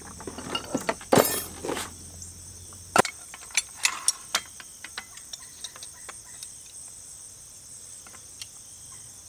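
Insects, crickets or similar, trilling steadily in the grass. Scattered clinks and knocks are heard, thickest in the first few seconds and with a short louder clatter about a second in. They thin out after about four and a half seconds, leaving only the insects.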